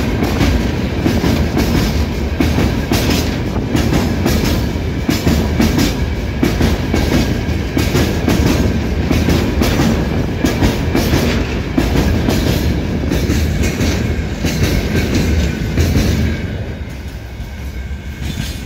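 Freight train wagons rolling past close by: a steady rumble with the wheels clattering over the rail joints. The sound fades over the last two seconds or so as the tail of the train pulls away.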